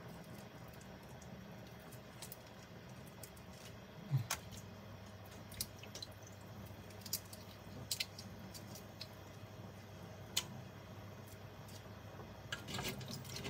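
Raw shrimp being peeled by hand over a metal mesh strainer: quiet wet squishes and small sharp clicks every second or so as shells come away, with a brief low knock about four seconds in, over a low steady hum.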